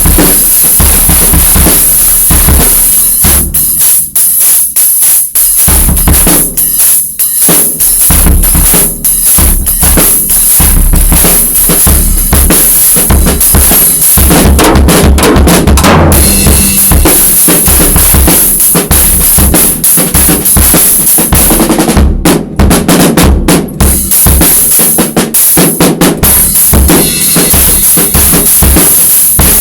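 Acoustic drum kit played freestyle, loud and busy: bass drum, snare with rimshots and rolls, and cymbals ringing over the top, with a couple of brief breaks a few seconds in.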